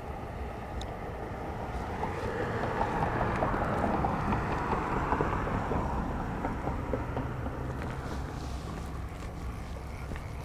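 Steady low outdoor rumble with a hiss that swells over a couple of seconds and fades again a few seconds later.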